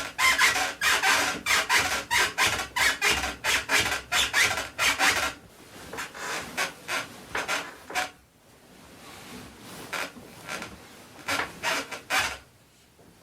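Squeaky spring mattress and wooden bed frame creaking under rapid, repeated bouncing, about three or four creaks a second. After about five seconds the creaks thin out and soften, stop for a couple of seconds, then come back as a few scattered creaks.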